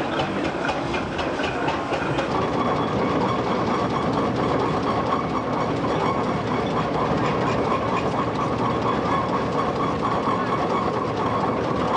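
Steam road engine on the move. A quick, regular mechanical clatter comes first, then for the rest of the time a steadier running noise.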